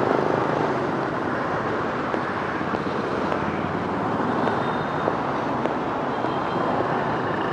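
Steady street traffic noise of passing vehicles in a busy city.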